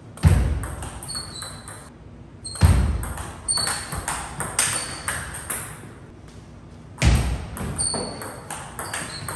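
Table tennis ball clicking back and forth between paddles and table in three short rallies, each opening with a heavier thump. The clicks come in quick runs with brief gaps between points.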